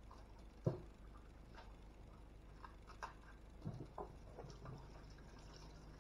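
A few faint knocks and clicks over quiet room tone, the loudest a little under a second in and a small cluster around three to four seconds.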